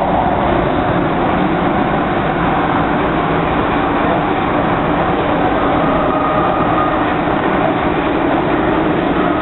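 MTR Kwun Tong Line M-Train with motor car C278 running under way: a steady rumble of wheels and car body, and a traction-motor whine that grows stronger about halfway through.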